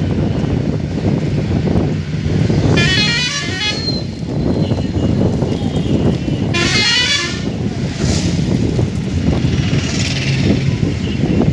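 Moving bus, its engine humming steadily under road and traffic noise. A vehicle horn twice plays a quick warbling run of stepped notes, about three seconds in and again about seven seconds in.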